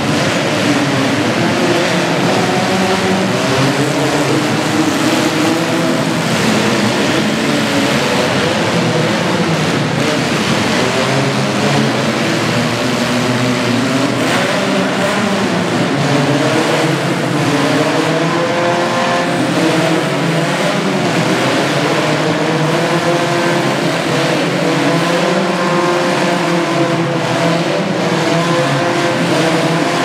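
Several demolition-derby compact cars' engines revving and running at once. Their pitches keep rising and falling over one another.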